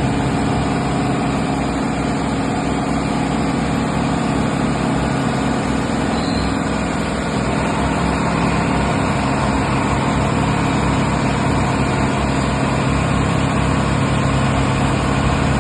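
Steady hum of running machine-shop machinery: a constant drone with a few fixed low tones that holds unchanged throughout.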